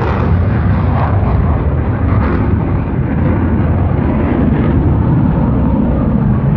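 Jet engine of a departing Thunderbirds F-16 fighter: a loud, steady low rumble after takeoff, its higher hiss slowly fading as the jet climbs away.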